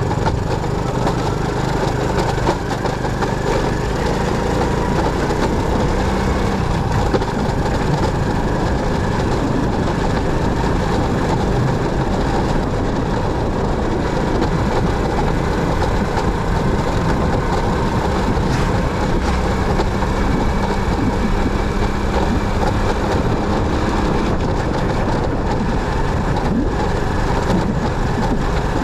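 Motorcycle running steadily on the move, its engine mixed with road and wind noise.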